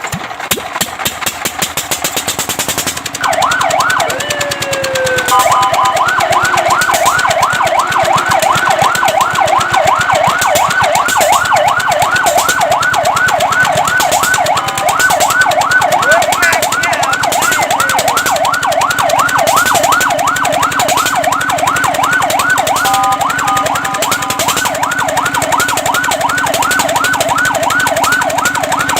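Fire truck siren starting up about three seconds in. It gives one short slow wail, then settles into a loud, fast yelp of rising sweeps, about four a second, with two brief changes in the pattern. Before it starts, a rapid ticking rattle.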